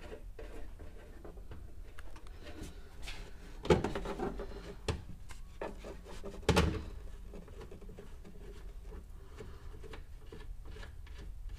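Nuts being hand-threaded onto a taillight's mounting studs in a car trunk: quiet small clicks and rubbing, with two louder knocks about a third of the way in and just past halfway, over a low steady hum.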